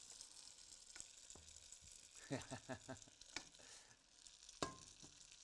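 Faint sizzling of a hot pan on the stovetop. About two seconds in there is a quick run of falling squeaks, and near the end a single sharp metal clink.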